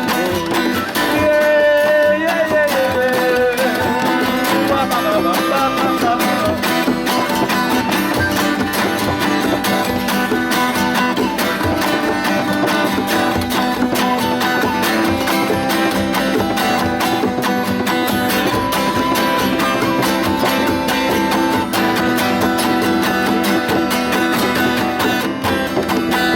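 Music led by acoustic guitar, played steadily throughout, with a wavering melody line in the first few seconds.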